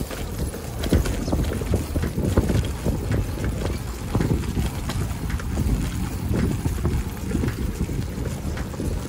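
Wind noise on a bicycle-mounted microphone, with frequent irregular knocks and rattles as the bicycle rolls over a brick-paved road.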